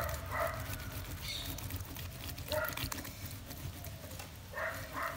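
Ripe tomato being grated on a small handheld metal grater into a bowl: repeated wet scraping strokes of the flesh across the grater blades. A few short calls sound in the background.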